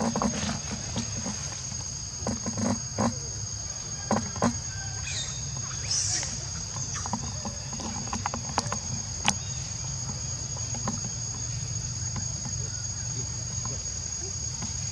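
Steady high-pitched insect chorus trilling without a break, with a few light clicks and rustles scattered through it.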